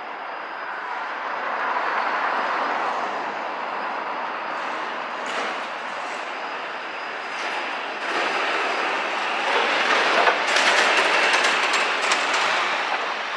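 A rail vehicle passing close by, wheels running on the rails, growing louder with a rattling clatter that peaks around ten seconds in.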